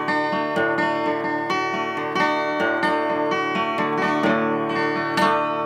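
Guitar strumming a held chord, a steady run of strums with a last strong strum near the end that is left to ring and fade: the closing chords of a hymn accompaniment.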